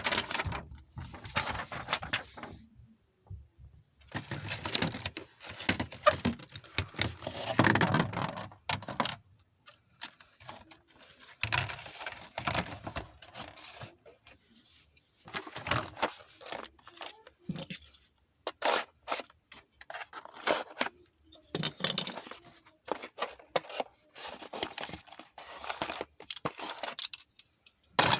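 Beyblade packaging being torn open and handled: bursts of tearing and crinkling with small scrapes and clicks, broken by short pauses.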